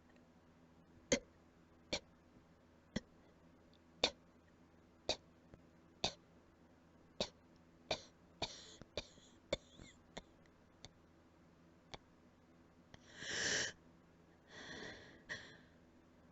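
A run of short, quiet coughs, each a single sharp hack, coming about once a second, then two longer, breathier coughs near the end, the first the loudest. The uploader puts the coughing down to allergies.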